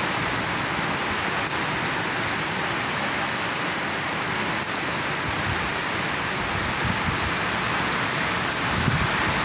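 Heavy rain falling steadily on dense tree foliage: an even, unbroken hiss. A low rumble creeps in near the end.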